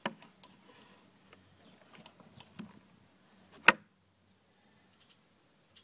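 Handling of a plastic AC charger, its cord and a small rechargeable battery pack: scattered light taps and clicks, with one sharp, loud click a little before four seconds in.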